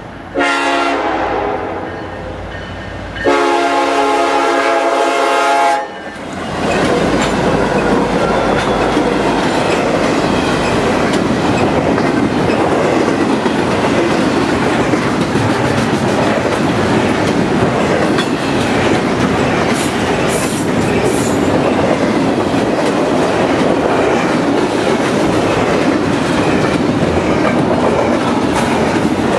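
A Norfolk Southern SD70M-2 locomotive's air horn sounds a short chord blast, then a longer one of about two and a half seconds. After that, the steady rumble and clatter of a long train of double-stack intermodal well cars rolling past close by.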